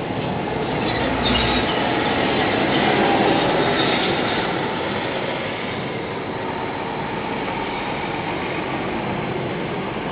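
Fireworks barrage heard from afar: a continuous rumbling crackle with no separate bangs, swelling a little a second or so in.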